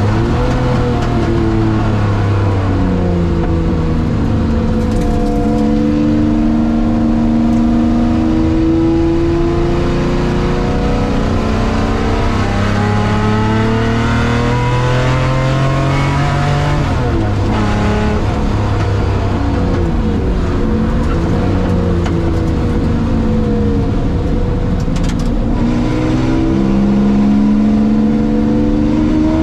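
Worked Jaguar V12 race engine in a TWR-tribute XJS, heard from inside the cabin at full racing speed. Its pitch climbs and falls repeatedly through the corners and gears, dropping sharply about 17 seconds in and climbing again near the end.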